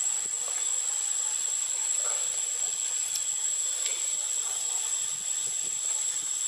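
Steady, high-pitched insect chorus droning without a break in tropical forest, with a few faint ticks.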